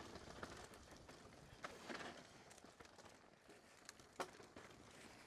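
Faint sound of a mountain bike rolling over a dirt trail, with a few short knocks and rattles from the bike. The sharpest knock comes about four seconds in.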